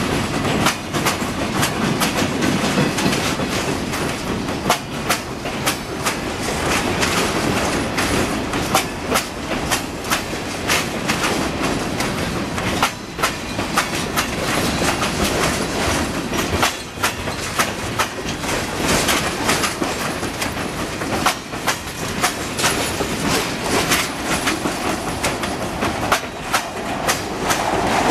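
Freight train's covered hoppers and tank cars rolling past close by: a steady rumble of steel wheels on rail, with many sharp clacks as the wheels cross rail joints.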